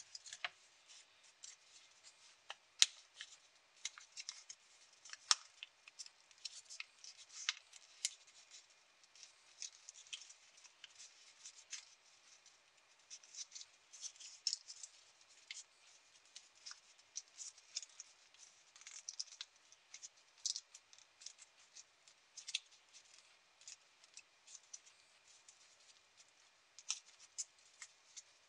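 A small sheet of origami paper being folded and creased between fingers: quiet, irregular crisp crinkles and snaps of paper, the sharpest snap about three seconds in.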